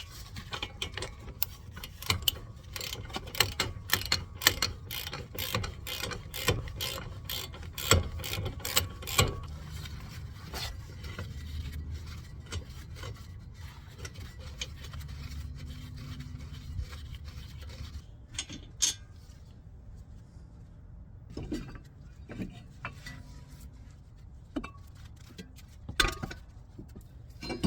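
Hand ratchet clicking rapidly as the brake caliper bolts are spun out, for about the first nine seconds, then a few scattered knocks and clunks of metal parts.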